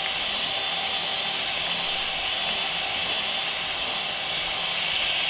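Electric hand mixer running steadily at high speed, its twin beaters whipping a frothy mixture of instant coffee, iced water and powdered sugar.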